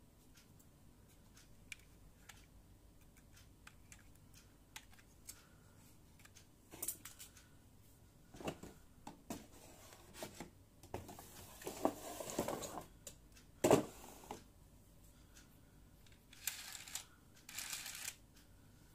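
Hands handling a plastic toy launcher and its parts: scattered light clicks and taps at first, then rustling and knocks of plastic, the loudest a sharp knock about two-thirds of the way through.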